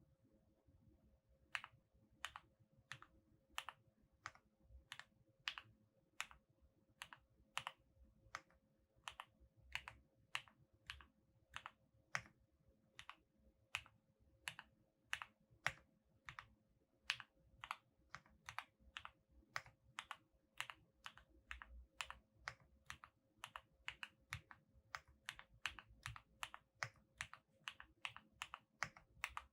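Typing on a QK65 mechanical keyboard with lubed Gateron Oil King linear switches in an aluminium plate, under GMK-clone keycaps. Single keystrokes clack one at a time, about two a second at first and picking up to about three a second toward the end.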